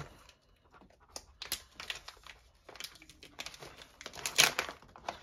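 Plastic coffee bag crinkling as it is opened by hand, with scattered crackles and a louder crinkle about four seconds in.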